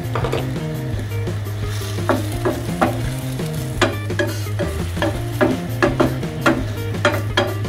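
Wooden spoon stirring and scraping chopped vegetables in a simmering sweet and sour sauce in a nonstick frying pan, the sauce sizzling softly as it is thickened with cornstarch; from about two seconds in the spoon knocks against the pan a few times a second. Background music plays underneath.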